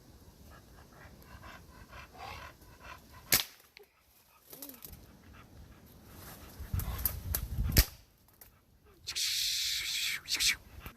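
American Bully dogs working a raccoon in dense brush, with rustling, a short falling whine and panting. Two sharp cracks stand out, one about three seconds in and one near eight seconds.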